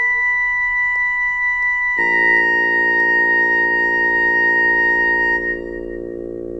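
Yamaha PSR-E263 portable keyboard playing a slow tune in long held notes: one high note, then about two seconds in a slightly lower high note over a full chord, the top note fading out about five and a half seconds in while the lower notes carry on.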